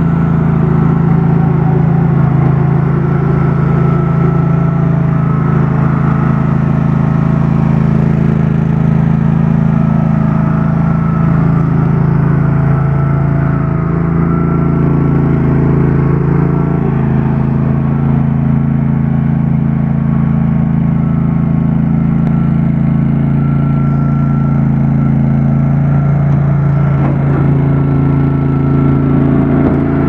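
Engine of a Thomas 25GT mini tracked skid steer running steadily while the machine stands still, with slight shifts in pitch about halfway through and again near the end.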